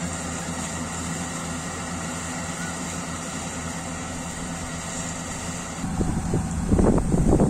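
Yanmar AW70GV combine harvester running steadily, a low engine hum with a high whine over it. About six seconds in the whine stops and a louder, uneven rumbling noise takes over.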